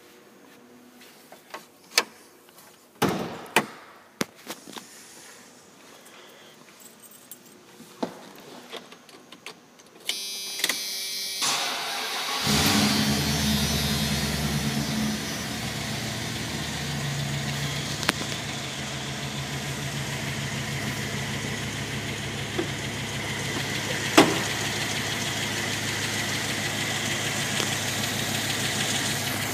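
A few scattered clicks and knocks, then, about twelve seconds in, the 1996 Dodge Ram 1500's 5.9 Magnum V8 starts and settles into a steady idle. There is one sharp click about two-thirds of the way through.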